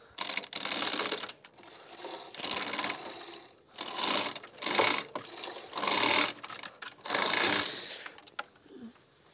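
Hand-operated chain hoist ratcheting as its chain is pulled, in about six bursts of rapid clicking with short pauses between, lifting a trailer frame.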